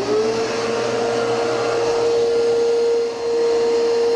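Shop vacuum running just after being switched on: its motor tone settles quickly into a steady high whine with a loud rush of air through the hose, dipping briefly about three seconds in.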